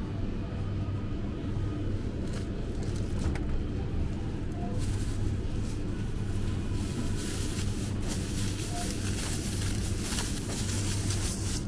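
Thin plastic produce bag crinkling and rustling as a bell pepper is bagged by hand, starting about five seconds in and going on until near the end, over a steady low hum.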